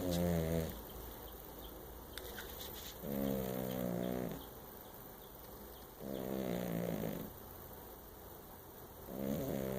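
Cat snoring: a pitched snore a little over a second long, repeating about every three seconds, three times, with the tail of one more at the very start.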